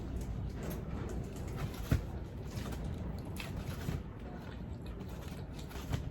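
A person eating close to the microphone: chewing and other wet mouth noises, with scattered small clicks and a sharp knock about two seconds in and another near the end.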